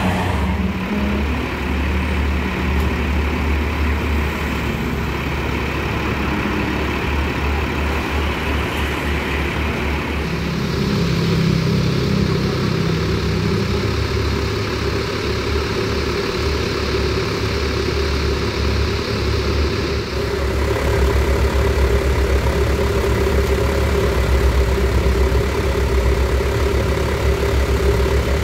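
Heavy bus engine running with a steady low drone, growing a little louder about two-thirds of the way through.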